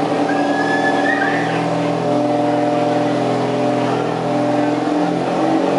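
Riding lawn mower engine running hard and steady under load while pulling a weighted sled, its pitch stepping slightly a couple of times.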